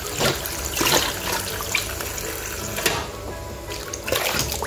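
Tap water running into a stainless-steel pot in a sink while hands swish and rinse spinach leaves, with several short splashes. The running water thins out for about a second around three seconds in.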